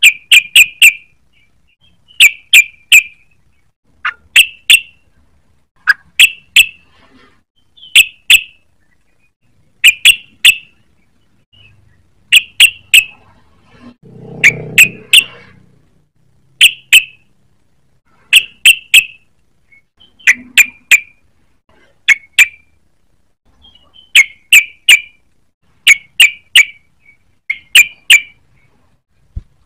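Yellow-vented bulbul (trucukan) singing, repeating a short phrase of two to four quick, sharp notes about every two seconds.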